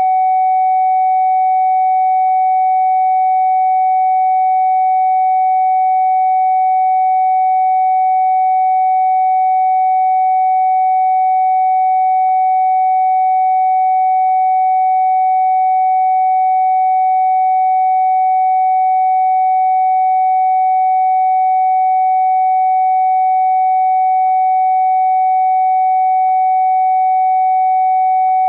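Generated sine-wave test tone for a speaker diagnostic, held steady at a single mid pitch without any change. The tone is meant to stay clear and stable; crackling or sharp distortion over it would point to a faulty phone speaker.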